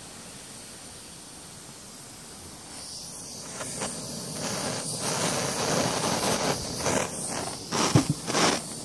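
Wood fuel burning in a homemade top-lit tin-can gasifier stove as it catches and flares up: a crackling hiss that grows louder from about three seconds in, with a few sharp clicks near the end.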